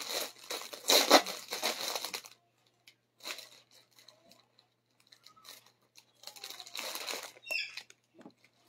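Clear plastic bag crinkling as a packaged piece of fabric is picked up and put down: about two seconds of dense rustling, a few faint scattered rustles, then more crinkling around six to eight seconds in.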